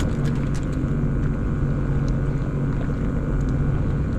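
Sea-Doo Fish Pro Trophy jet ski engine idling with a steady low hum, with a few faint clicks over it.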